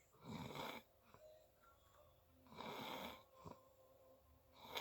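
A person snoring, three snoring breaths about two seconds apart, the last running on past the end.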